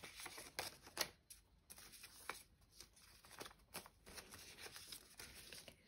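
UK polymer banknotes being handled and slipped into plastic binder envelopes by hand: faint rustling with scattered soft crinkles and clicks.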